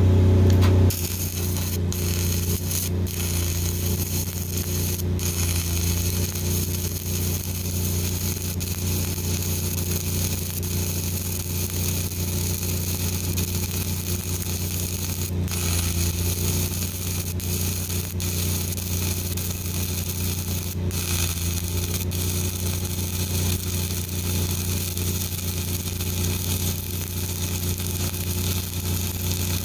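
Self-shielded flux-cored arc welding with Lincoln Innershield NR-305 5/64-inch wire at about 28.8 volts: the arc strikes about a second in and runs as a steady crackle with occasional sharper pops, over a steady low hum.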